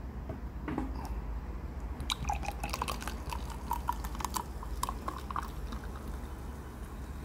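Lemon-lime soda poured over ice into a drinking glass: a run of crackling ticks and splashes from about two seconds in, dying away after about five and a half seconds.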